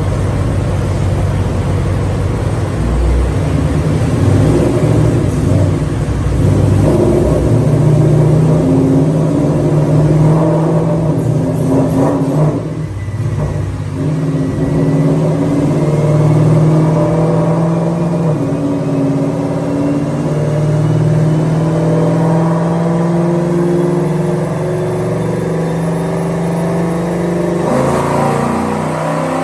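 Ford Mustang engine running hard and revving, its note holding and shifting in pitch. The sound drops briefly about halfway through, then a faint whine rises slowly over the rest of the run.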